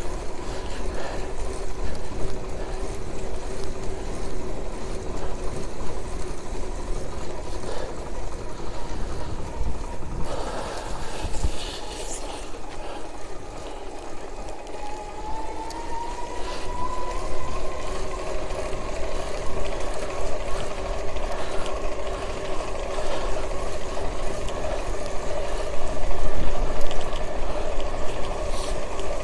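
Electric bicycle's Alba 500 W conversion-kit motor whining steadily under way, over a low rush of road and wind noise. About halfway through, its pitch rises and then holds as the bike picks up speed.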